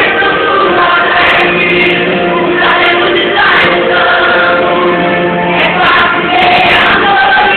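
Gospel song playing loudly, with a choir of mixed voices singing over the backing music.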